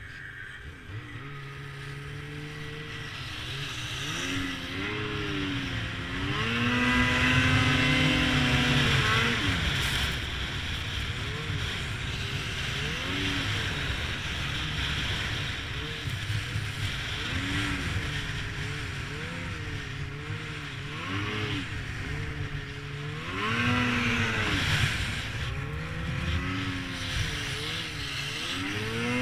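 Snowmobile engine running under way, its pitch rising and falling again and again as the throttle is opened and eased off, loudest about a quarter of the way in and again about four-fifths of the way in, over a steady hiss.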